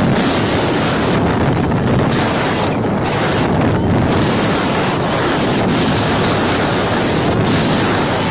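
Wind buffeting the microphone of a phone on a moving motorcycle: a loud, steady rushing that covers everything else.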